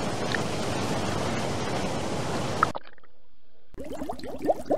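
Choppy water sloshing and splashing against a camera held at the surface, a steady wash of noise that cuts off suddenly about three seconds in. Near the end come underwater bubbling gurgles, quick short rising pops several times a second.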